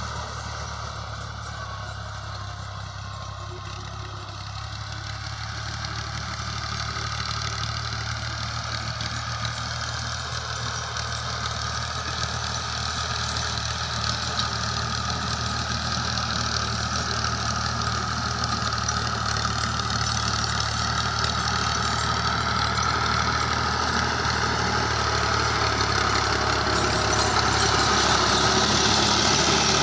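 Tractor engine running steadily while levelling land with a blade, slowly getting louder.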